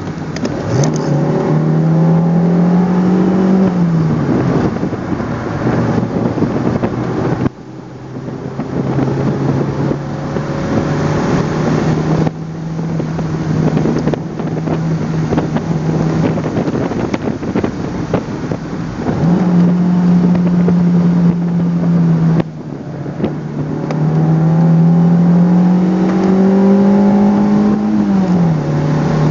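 Toyota MR2's four-cylinder engine heard from inside the cabin under hard driving. Its note climbs and falls back several times through gear changes, with sudden drops, over a steady rush of road and wind noise.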